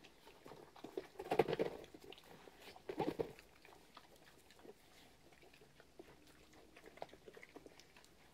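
Pigs eating feed from rubber pans: a few short grunts about one and three seconds in, then quieter munching with small clicks and snuffles.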